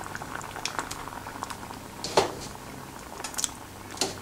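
Curry sauce boiling in a pot, a steady crackle of small bubbling pops, with a louder plop about two seconds in as raw shrimp are dropped into it.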